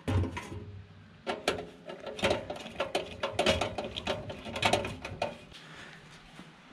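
Light metal clicks and rattles, irregular and several a second, as a part is worked back into a gas furnace's burner compartment by hand with a screwdriver, during a natural-gas-to-propane conversion. A knock comes at the very start, and the clicking dies down about five seconds in.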